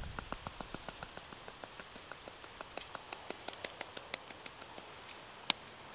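Hand-twisted salt and pepper grinder being turned, giving runs of small, quick gritty clicks, with one sharper click near the end.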